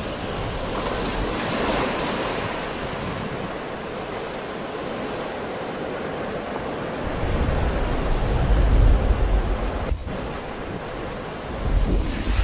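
Sea waves breaking and washing in continuously, with a hissing surge of surf in the first few seconds. Wind buffets the microphone with a heavy low rumble in gusts about seven to ten seconds in and again near the end.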